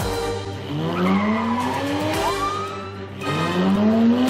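Car engine revving up twice, each time rising steadily in pitch, with a short tyre squeal near the middle, over background music.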